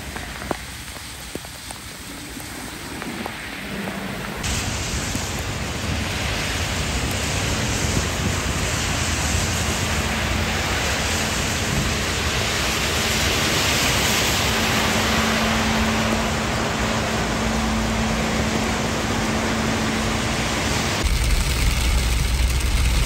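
Heavy rain falling, a steady hiss that changes abruptly about four seconds in and grows fuller, with cars passing on a wet road. Near the end a low rumble comes in under the rain, heard from inside a car with rain on the glass.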